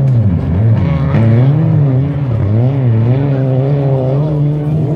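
Race car engines on a dirt track revving up and down through the corners. The pitch rises and falls about once a second.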